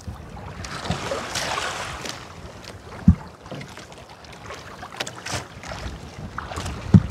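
Wind and water noise aboard a small fishing boat at sea, with scattered light clicks, a brief hiss about a second in, and two dull knocks about four seconds apart.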